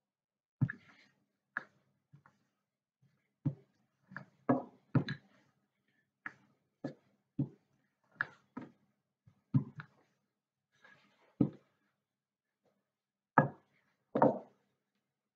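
Wooden rolling pin rolling out pastry on a floured worktop, knocking and clunking against the surface in short, irregular knocks as it is pushed, lifted and set down again.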